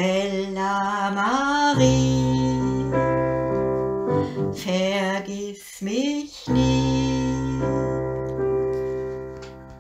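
Closing bars of a song on electric keyboard: held chords under a wavering melody that slides upward in pitch, fading away near the end.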